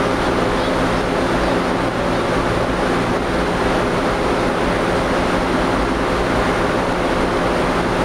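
Aluminum stack melting furnace running: a steady, loud roar with a constant low hum beneath it.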